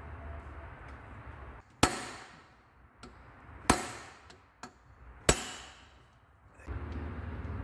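Three sharp mallet blows, each with a short metallic ring and spaced a couple of seconds apart, knocking the camshaft sprocket hub of a VW 1.9 PD TDI engine off the end of the camshaft instead of using a puller.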